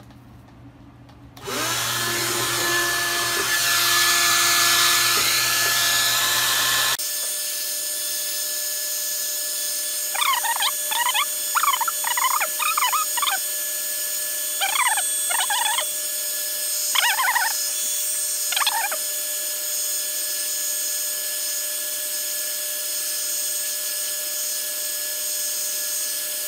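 Hand-held hair dryer switched on about a second and a half in and then running steadily, blowing hot air onto a smartwatch to soften the display's adhesive. About seven seconds in its low hum drops out abruptly. A run of short, high chirps sounds over it between about ten and nineteen seconds in.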